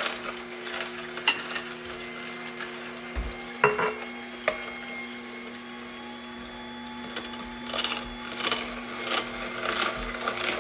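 AICOOK slow cold-press juicer running with a steady, quiet motor hum as celery stalks are fed into its chute. There are a few knocks in the first half, then from about seven seconds in a run of repeated crunching as the celery is crushed.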